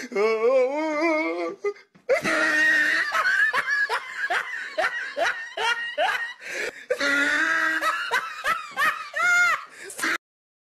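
A person laughing hard. A wavering laugh comes first, then after a short break about eight seconds of pulsing belly laughter, which cuts off suddenly near the end.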